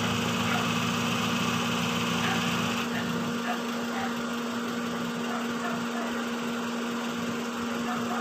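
A small engine running steadily with an even hum; its low rumble eases off about three seconds in.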